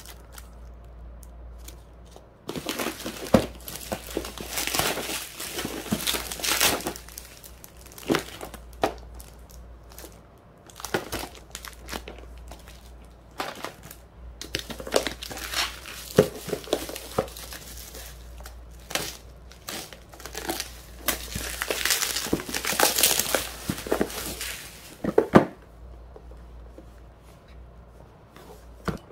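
Plastic packaging and bubble wrap crinkling as they are handled and unwrapped, in several bouts of a few seconds with short pauses between.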